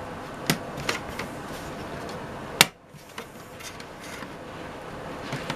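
Plastic parts of a model railway engine shed kit being handled and snapped together: a few light clicks, then one sharp snap about two and a half seconds in, and another click near the end.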